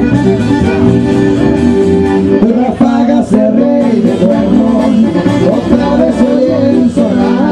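Live band music with accordion, acoustic guitar and electric bass. The accordion holds sustained notes at first, and a man's singing voice comes in about two and a half seconds in.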